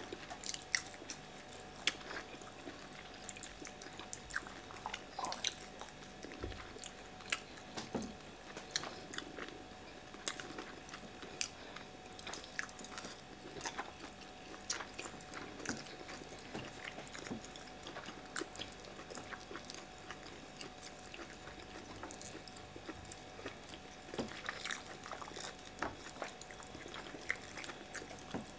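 Close-up eating sounds from two people eating fufu and grilled mackerel by hand: soft chewing, lip and finger-licking smacks and small clicks, scattered irregularly and fairly quiet.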